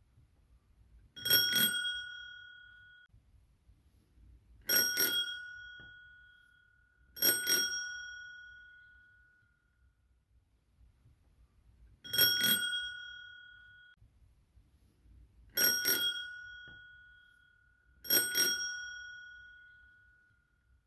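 Lever-struck daisy-flower bicycle bell rung six times. Each ring is a quick burst of strikes followed by a clear tone that keeps ringing and fades over about two seconds.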